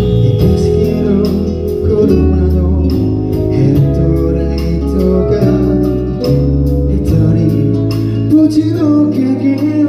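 A male singer singing live into a handheld microphone over instrumental backing with sustained bass notes that change every second or so.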